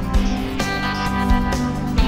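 Instrumental background music: guitar over a steady low beat.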